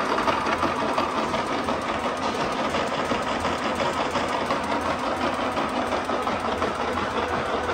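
Stanko 7A420 vertical slotting machine running under power at its top stroke rate: a steady mechanical whirr of the drive and reciprocating ram, with a fast, even ticking.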